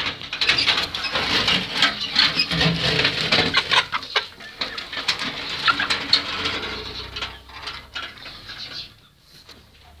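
A flock of young chickens clucking and squawking as they rush out of the just-opened coop, amid a clutter of scuffling clicks. The commotion dies down over the last few seconds.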